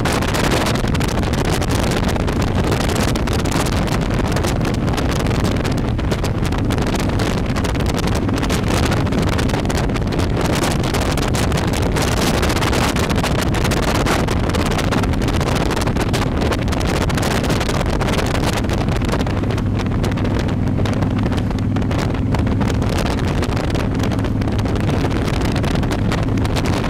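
Heavy wind rush on a microphone riding on a motorcycle at road speed, over the steady low hum of the motorcycle's engine cruising.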